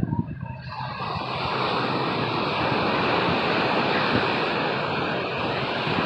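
Steady rushing noise of ocean surf and wind, setting in suddenly about a second in and holding level.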